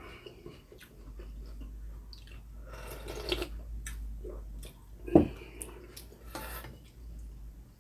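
Eating sounds at close range: slurping and chewing of beef rib soup drunk straight from a ceramic bowl, in short bursts. A single sharp knock about five seconds in, as the bowl and spoon are handled.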